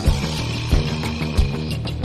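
Music with a steady beat, a low drum thump about every two-thirds of a second under sustained pitched notes.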